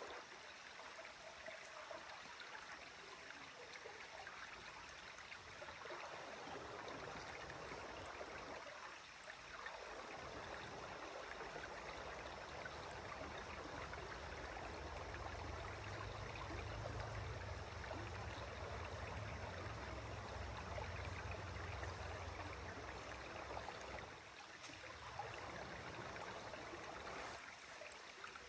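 Shallow, rocky mountain creek flowing steadily over stones. About halfway through, a low rumble comes in for several seconds and then fades.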